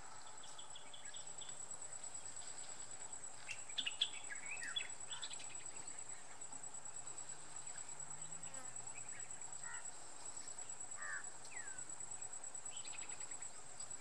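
Forest ambience: a steady high-pitched insect drone throughout, with scattered bird chirps and calls. The loudest is a quick cluster of chirps about four seconds in, and more short calls come around eleven seconds.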